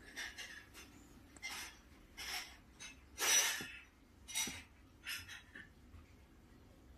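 Soft rustling as a hand rubs a sleeping ragdoll cat's fur, in about six short, irregular strokes; the loudest comes about three seconds in, and the sound dies down after about five and a half seconds.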